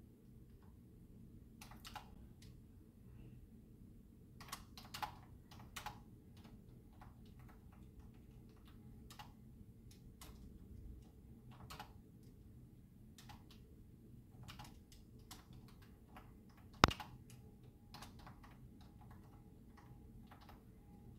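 Typing on a computer keyboard: keys clicked in irregular short runs, with one sharp click, much louder than the rest, about seventeen seconds in.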